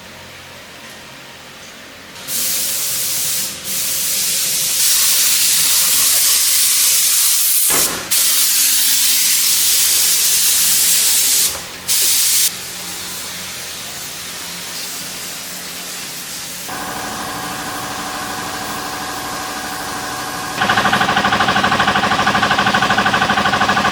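Compressed air hissing in long bursts with short breaks. Then a motor starts a steady pitched hum, which grows louder near the end.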